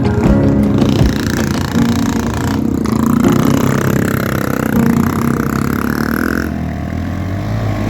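Motorcycle engine running under load, its pitch rising and falling unevenly as it revs.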